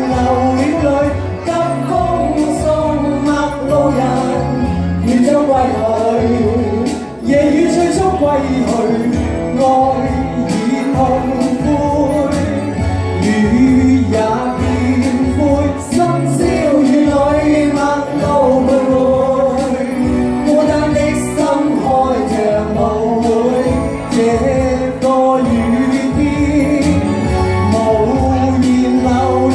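A song: a singing voice over instrumental accompaniment with a steady beat.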